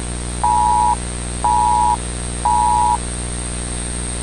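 Emergency-alert-style attention beeps from a homemade EAS test video: a steady two-tone beep, half a second on and half a second off, sounding three times and stopping about three seconds in, over a steady hiss and hum.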